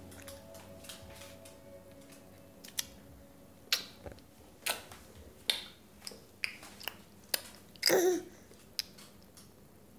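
A baby slapping his hands on a plastic high-chair tray: a run of sharp, irregular taps, with a short vocal sound from the baby about eight seconds in.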